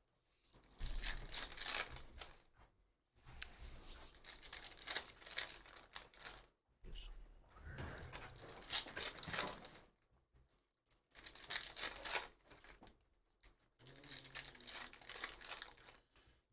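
Foil trading-card pack wrappers being torn open and crinkled while cards are handled, in about five crackling bursts of one to three seconds with short quiet gaps between.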